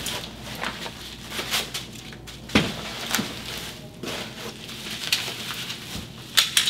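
Handling noise from unpacking: plastic wrapping rustling in a cardboard box while a hard plastic pistol case is opened and the pistol lifted out. Scattered clicks and knocks, the sharpest about two and a half seconds in and another near the end.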